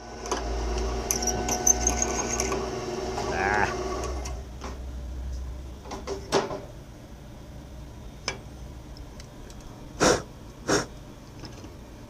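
Letter F twist drill cutting into a cast iron hand wheel hub. For the first four seconds it cuts loudly with a ringing chatter and a brief squeal. It then runs more quietly with a few sharp clicks and two short louder bursts near the end.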